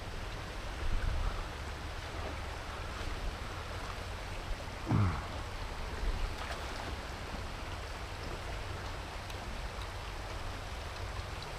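Shallow river current rippling and running steadily over stones. About five seconds in, a short sound slides down in pitch.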